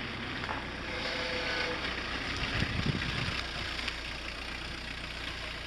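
An engine idling steadily, a low even hum under a broad hiss.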